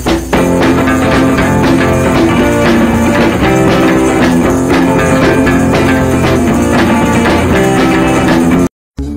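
Background music with guitar, cutting off suddenly for a moment near the end.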